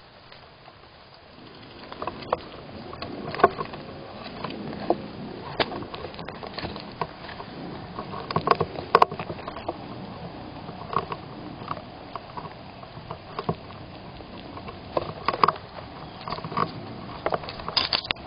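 Squirrels moving about inside a wooden nest box close to the microphone: rustling and scratching with many irregular knocks and clicks, starting a second or two in.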